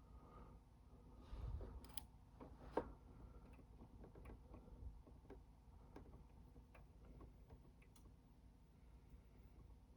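Near silence with a low hum and a scattering of faint ticks and light clicks, the sharpest a little before three seconds in.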